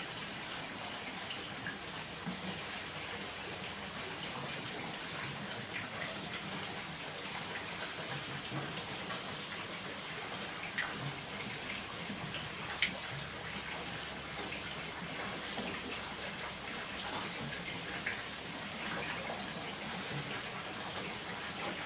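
Small wood fire burning on the ground, giving a couple of sharp pops from the burning logs over an even hiss. A steady high-pitched whine runs throughout.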